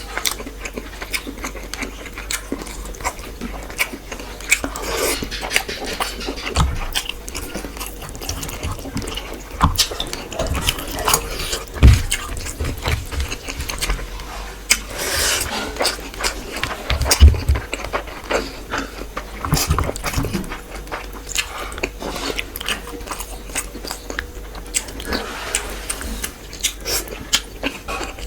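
Close-miked eating of fish with rice and curry: chewing and biting, with many small wet clicks and smacks and a few heavier knocks.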